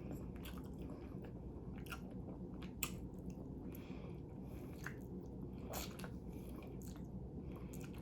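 Quiet chewing and eating sounds of a person eating close to the microphone, with a few small scattered clicks.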